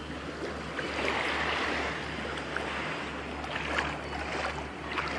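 Shallow seawater at the shoreline lapping and sloshing, with a few small splashes in the second half.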